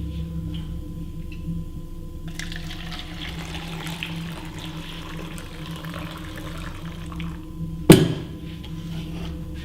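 A rushing, watery hiss lasting about five seconds over a steady low hum, then a single sharp knock.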